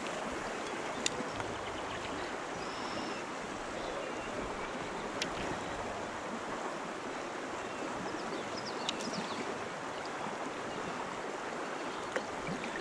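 Steady rush of a flowing trout stream, with a few faint clicks about one, five and nine seconds in.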